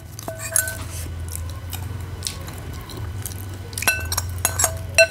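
A metal spoon clinks against a ceramic bowl several times, with ringing taps twice near the start and a cluster near the end. Quiet chewing comes in between.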